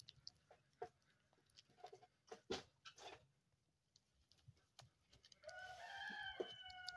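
A rooster crows once near the end, a long call drifting slightly down in pitch. Before it come soft, scattered clicks of a goat kid nibbling a bread bun.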